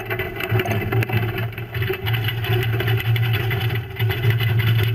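Fishing boat's engine and deck machinery running with a steady low hum, with irregular clattering as snow crabs tumble out of a crab pot onto a steel sorting table.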